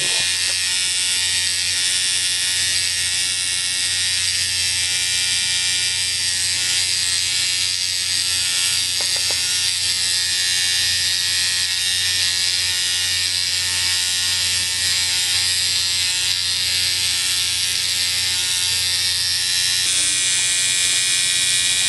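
Stingray X2 rotary tattoo machine running steadily at 8.5 volts, a constant electric buzz, with its gib screw backed out about three full turns to soften the needle stroke.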